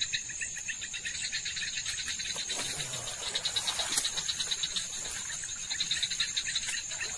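Night chorus of crickets and frogs: a steady high insect buzz over fast, evenly pulsed chirping. The chirping drops out for a second or so in the middle, where a brief rustle of noise takes its place.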